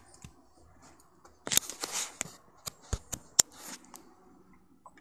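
Handling noise from the recording device's microphone as it is gripped and moved: a quiet stretch, then a cluster of sharp clicks and short rubbing scrapes from about one and a half seconds in to near four seconds.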